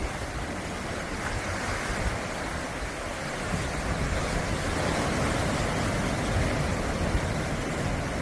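Sea waves washing onto the shore, a steady rush that swells a little a few seconds in.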